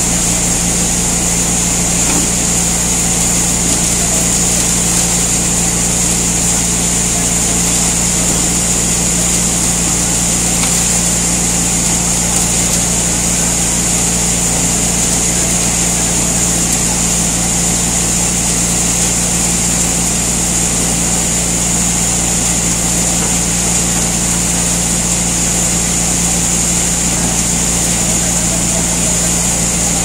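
ABJZ40C concrete mixer pump running steadily while its drum turns and mixes a load: a constant machine drone with a high hiss over it.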